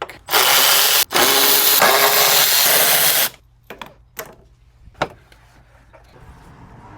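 Handheld power tool run twice, a short run and then a longer one of about two seconds, followed by a few light clicks.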